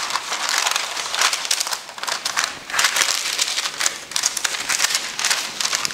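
A sheet of baking paper being folded in half and pressed flat by hand, crinkling and crackling in an uneven run of rustles.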